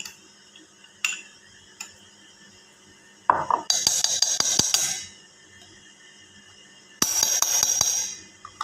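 A metal spoon scraping and clinking inside a steel grinder jar, scooping out ground rice paste: a few single taps, then two longer bouts of rapid scraping and clatter.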